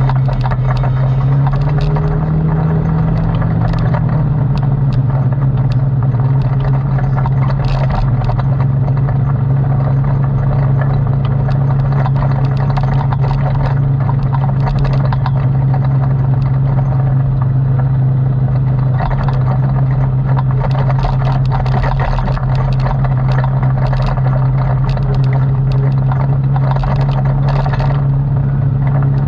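ATV engine running at a steady speed, its pitch rising slightly in the first couple of seconds and then holding, with frequent rattles and clatter.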